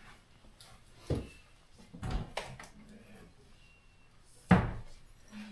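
Dull knocks and bumps at a Samsung refrigerator's ice dispenser, three of them, the loudest about four and a half seconds in, as it is tried out for ice. A low steady hum starts near the end as the dispenser runs.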